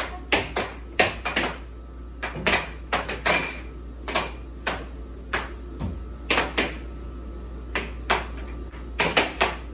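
Air hockey game: plastic mallets and puck clacking sharply and irregularly as the puck is struck and rebounds off the table's rails, over a steady low hum.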